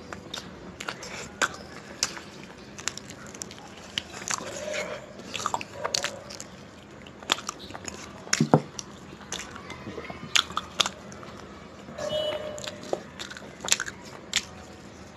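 Close-up wet biting and chewing as a person eats meat off a chicken leg piece by hand, with irregular sharp mouth clicks and smacks. There is one louder knock a little past the middle.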